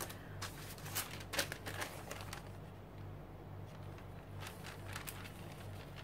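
Faint rustling and scattered light ticks of thin printed tissue paper being handled and laid down onto a page wet with gel medium, over a steady low hum.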